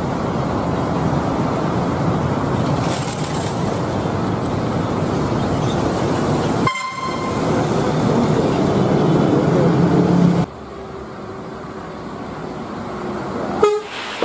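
Street traffic noise with a large bus running, and a short horn toot about seven seconds in. The noise drops sharply about ten seconds in.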